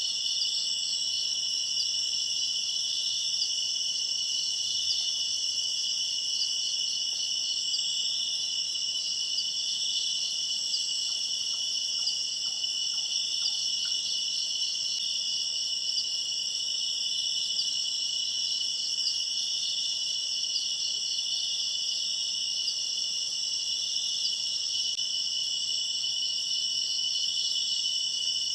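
A steady, dense chorus of insects: continuous high-pitched trilling layered in several pitch bands, without pause.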